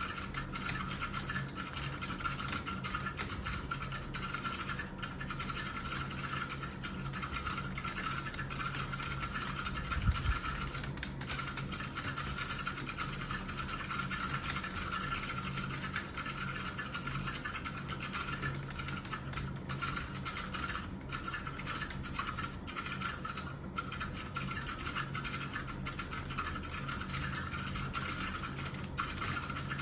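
Computer keyboard typed on fast and continuously, a dense unbroken clatter of key clicks, over a faint steady low hum. One low thump about ten seconds in.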